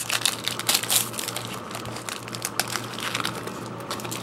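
Plastic wrapper of a trading card pack being torn open and crinkled by hand, a dense crackle that is busiest in the first second and then thins out.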